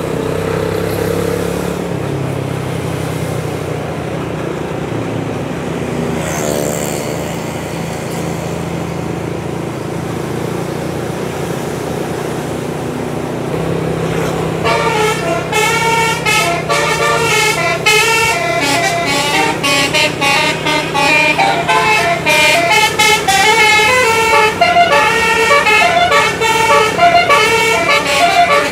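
A heavy vehicle's engine runs steadily. About halfway through, a bus's multi-tone musical air horn ("telolet") starts playing a fast tune of many short notes that continues and grows louder.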